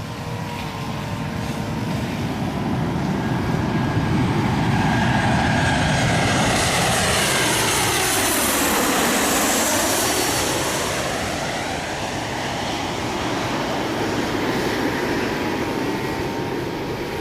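Airplane engines passing close overhead on the landing approach, building to a loud rush and then easing off. Its hissing tone sweeps down and back up as the plane passes nearest, about halfway through.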